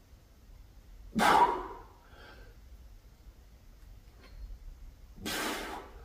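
A man's forceful exhalations while pressing heavy dumbbells on an incline bench: a short, sharp breath out about a second in and a longer one near the end, each as the weights are driven up.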